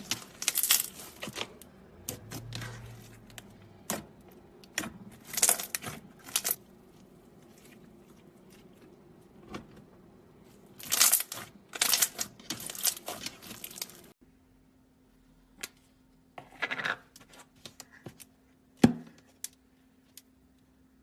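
Slime being squeezed and played with by hand, giving irregular bursts of crackling, popping and clicking. About 14 seconds in the background changes to a quieter steady hum, and a few sparser clicks follow, the sharpest near the end.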